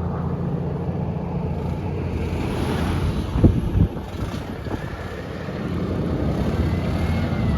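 Diesel engine of heavy earthmoving machinery running steadily, with two sharp knocks about half a second apart a little over three seconds in.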